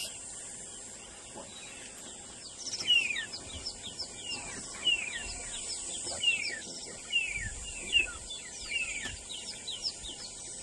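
Birds chirping: a quick series of short, downward-sliding chirps, several a second, starting a couple of seconds in, over a steady high hiss.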